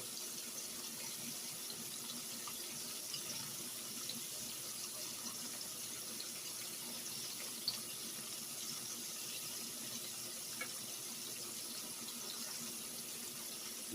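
Battered jumbo shrimp deep-frying in hot oil in a skillet: a steady sizzle with a few small crackles and one sharp pop about three-quarters of the way through.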